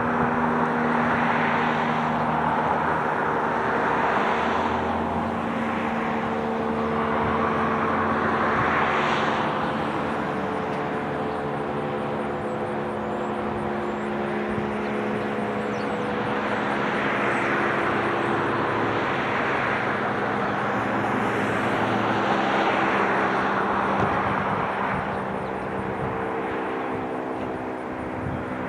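Federal Signal STH-10 rotating fire siren sounding its attack signal: a loud, steady wail over a rushing roar that swells and fades every few seconds as the rotating horn sweeps past.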